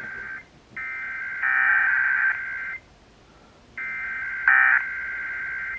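Emergency Alert System SAME header data bursts sent as a weekly test: a harsh digital warble of two rapidly alternating tones, repeated in bursts of about two seconds with short gaps. A second, louder layer of the same kind of bursts overlaps in places.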